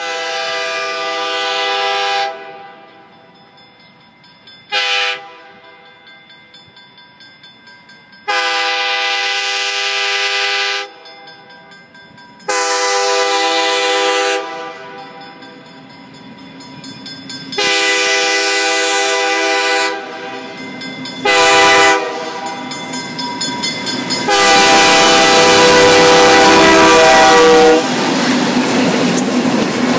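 ALCo diesel locomotive's multi-chime air horn sounding seven blasts, mostly long with two short, as a crossing warning while it approaches. The engine and wheel rumble grows louder, and the locomotive passes close after the last blast.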